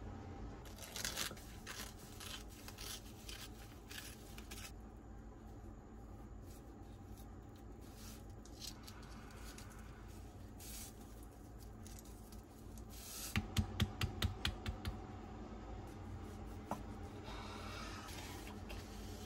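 Kitchen food-prep handling: scattered clicks, scrapes and rustling of utensils and food. About two-thirds of the way through comes a quick run of about eight knocks, several a second, like a knife on a cutting board.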